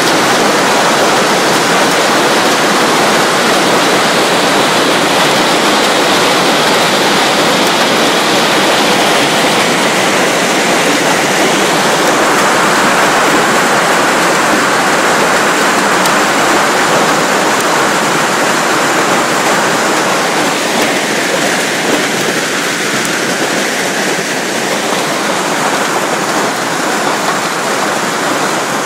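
Hailstorm with heavy rain pounding down, a loud, dense, steady roar of falling ice and water that eases a little after about twenty seconds.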